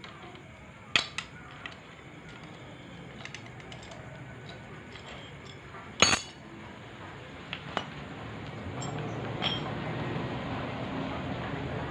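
Metal tools and engine parts clinking during a motorcycle engine teardown: a handful of sharp clinks, the loudest about six seconds in, with a steady rushing noise that grows louder in the last few seconds.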